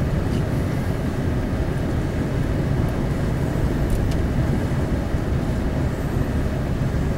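Steady low rumble inside a truck's cab: engine, tyre and wind noise while driving.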